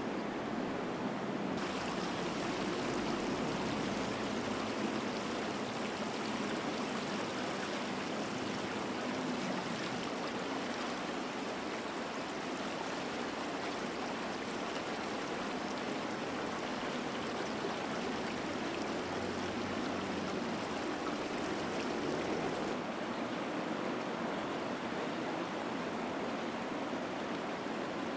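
Steady rush of running, splashing stream water. The hiss turns brighter about two seconds in and duller again near the end.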